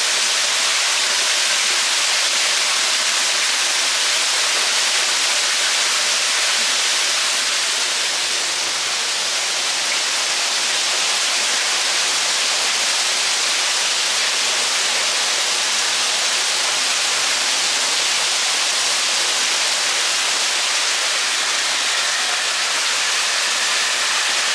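Waterfall rushing steadily: an even, unbroken noise of falling water.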